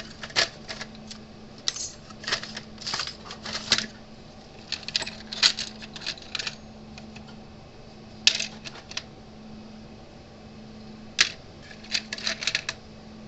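Small metal hardware such as bolts and nuts clinking and rattling as it is sorted through, in bursts of sharp clicks with a pause of a couple of seconds past the middle.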